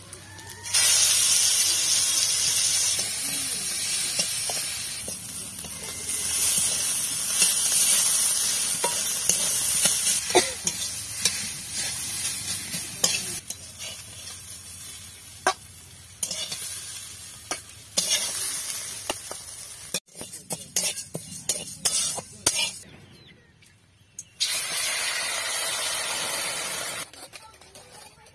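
Chopped leafy greens and dried red chillies sizzling in hot oil in a steel wok, with a metal spatula scraping and clicking against the pan as they are stirred. The sizzle jumps up about a second in and slowly dies down, with a second, shorter spell of sizzling near the end.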